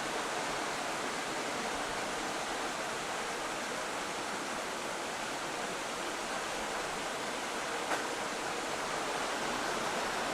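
A steady, even rushing noise with a faint tick about eight seconds in.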